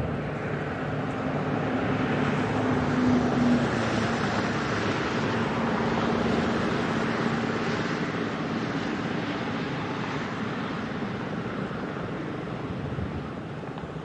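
ACA P-50 siren coasting down late in its wind-down after an alert test: a low, slowly sinking tone under an airy rush of air from the still-spinning rotor, fading gradually toward the end.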